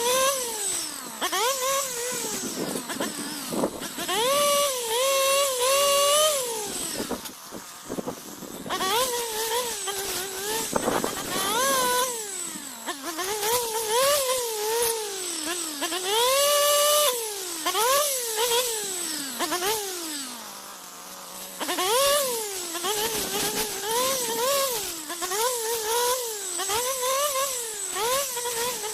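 Gas weedeater fitted with a chainsaw-tooth brush blade, cutting ironwood saplings: its engine revs up and drops back over and over as the blade bites and the throttle is let off. It falls briefly to idle about twenty seconds in.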